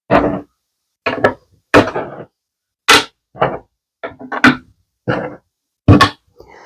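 Small hard resin magnets being handled and set down: a run of short, irregular clacks and knocks, roughly one or two a second.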